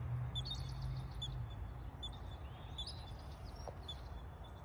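Small birds chirping: one short high chirp repeats about once a second, with a few other higher calls among it, over a low steady rumble.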